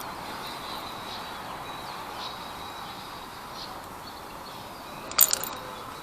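Steady outdoor background hiss with a faint, steady high-pitched tone, broken about five seconds in by a short, sharp clatter of clicks.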